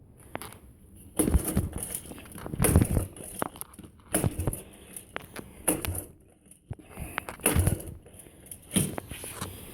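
1983 Suzuki QuadRunner 125 ATV being hand-started six times, about one stroke every second and a half. The engine never catches, the sign of a four-wheeler that won't start.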